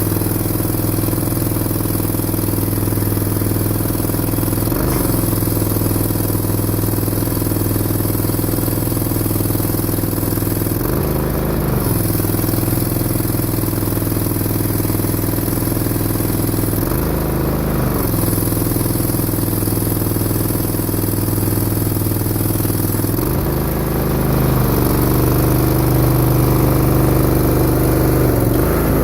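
Mini skid steer's small engine running steadily, its pitch dipping briefly and recovering about every six seconds as the hydraulics take load, then running a little louder and higher near the end.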